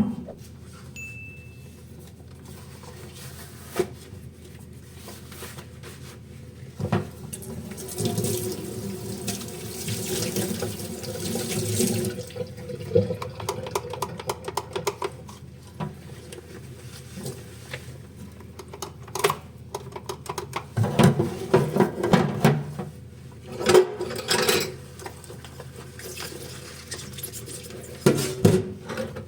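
Kitchen tap running water into a sink in spells while dishes are washed, with scattered knocks and clatter of dishes being handled.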